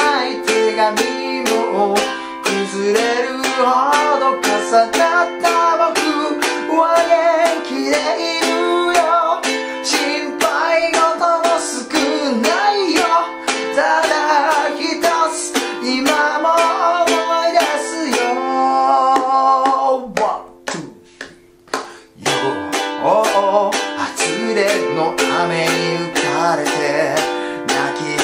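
Ukulele strummed steadily through simple chords while a man sings along in Japanese. About twenty seconds in, the strumming and singing break off for a couple of seconds, then start again.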